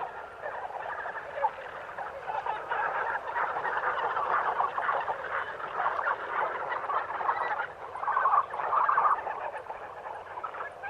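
A dense chorus of many animals calling at once, continuous and overlapping, swelling loudest about eight seconds in.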